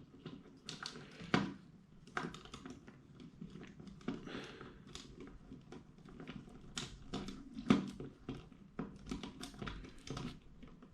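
Plastic LEGO Technic parts being handled and fitted, with an axle being pushed through beam holes: irregular small clicks and taps, and a sharper click a little before eight seconds.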